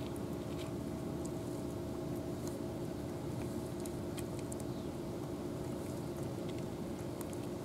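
Cats crunching dry kibble from plastic trays: scattered small crisp clicks over a steady low hum.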